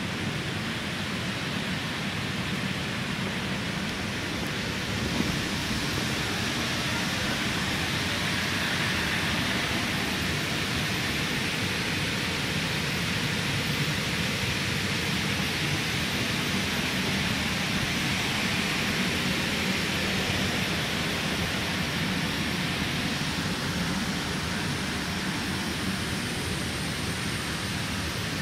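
Steady rushing hum of an electric inflatable blower fan running continuously to keep a bouncy castle inflated.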